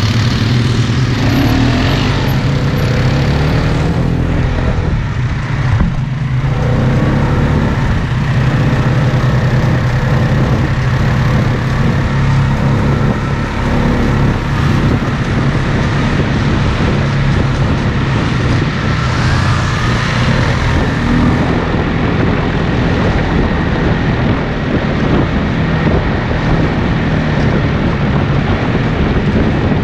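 ATV engine running steadily under way, heard from aboard the machine.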